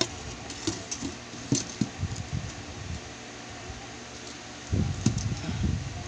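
Handling noise: scattered soft knocks and rustles, with a denser cluster about five seconds in, over a steady background hum.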